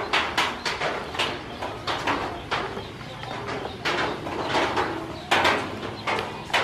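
A brood of ducklings calling: many short, overlapping peeps, several a second.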